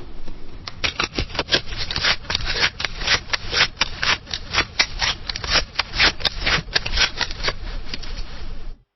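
Scissors cutting through paper: a quick run of crisp snips, about four or five a second, that stops abruptly near the end.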